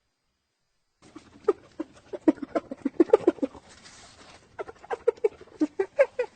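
Hyena laughing: two runs of short, rapid cackling notes with a brief pause between them, starting about a second in.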